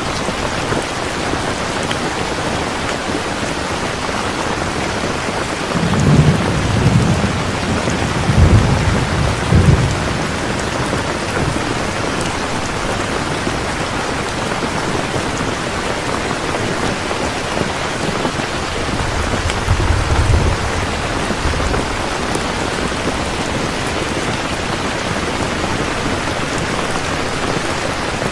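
Heavy rain falling steadily, with thunder rumbling twice: a longer rolling rumble of several swells about six to ten seconds in, and a shorter one around twenty seconds in.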